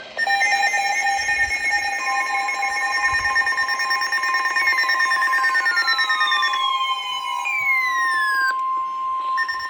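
Weather radio receivers sounding their alert for a new severe thunderstorm warning: several electronic alarm tones at once. Rapid beeping comes first, then a long steady alarm tone, joined partway through by siren-like tones sweeping down in pitch that cut off shortly before the end.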